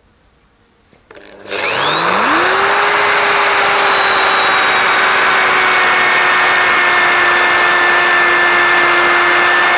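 Electric drill with a hinge boring bit starting up about a second and a half in, its motor whine rising quickly in pitch and then holding steady as the bit bores into a block of timber.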